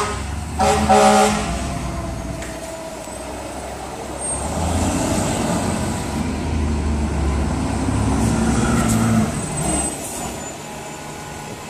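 Fire trucks' diesel engines running as the trucks drive slowly past, swelling from about four seconds in and fading near the end. A brief, loud horn blast sounds about a second in.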